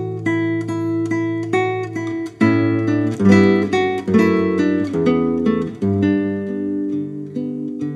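Solo nylon-string classical guitar by luthier Kim Sang Gil, played fingerstyle: repeated plucked notes over a held bass for the first couple of seconds, then a louder, busier passage of chords and moving bass notes.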